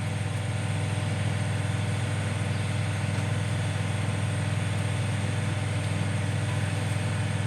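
Steady, even hum of a motor running in the workshop, with no tool strikes or clicks.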